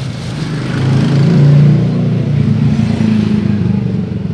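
A vehicle engine running, its low hum swelling about a second and a half in.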